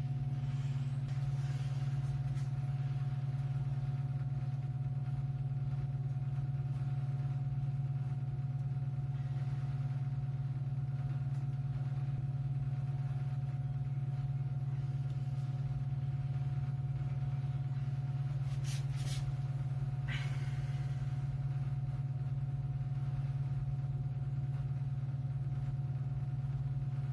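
Steady low hum like a motor or fan running, unchanging throughout, with a few brief clicks about two-thirds of the way in.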